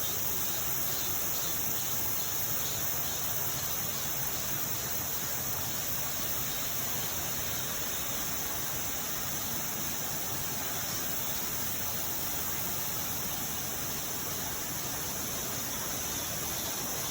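Mountain stream water rushing steadily over rocks, with a steady high-pitched insect chorus above it.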